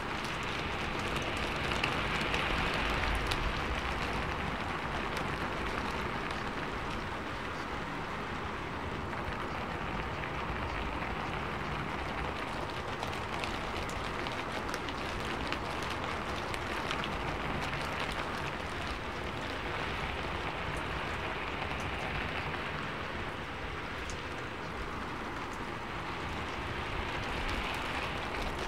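Steady rain: a dense, even hiss with faint drop ticks through it, swelling and easing gently every several seconds.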